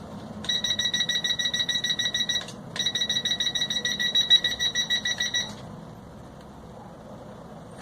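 Rapid electronic beeping at one steady high pitch, in two runs of quick beeps of about two and three seconds with a short pause between. It is the kind of status beeping a quadcopter or its controller gives when powered on or armed.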